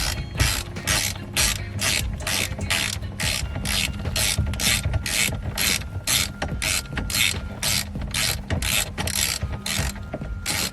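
Hand socket ratchet with a 19 mm socket clicking in steady back-strokes, about two to three a second, as it tightens the steering wheel hub's retaining nut.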